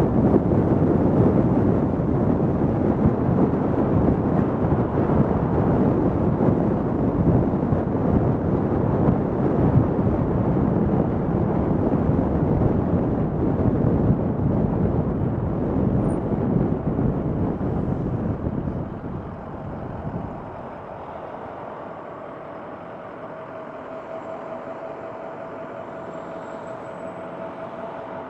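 Car travelling on a city street: a steady rush of road and wind noise that drops off about twenty seconds in, leaving a quieter steady engine hum with a faint high tone, as when the car slows to a stop and idles.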